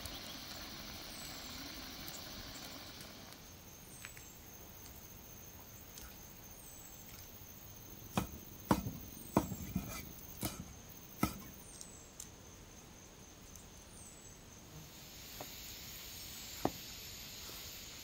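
Cleaver chopping raw shrimp on a wooden chopping block: a quick run of sharp knocks about halfway through. Underneath is a soft steady hiss and a high, short falling chirp that repeats about once a second.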